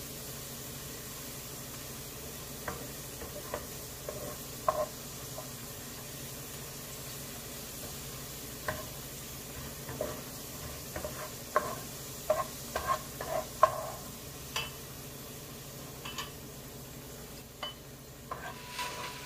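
Food sizzling as it fries in a pot while a utensil stirs it, clinking and scraping against the pot at irregular moments, most often in the middle stretch.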